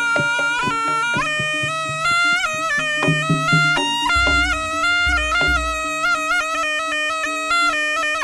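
Javanese jaranan music: a slompret (Javanese shawm) plays a reed melody moving in steps over sharp drum strokes. About halfway through come three deep low strokes, and a held low tone runs beneath the second half.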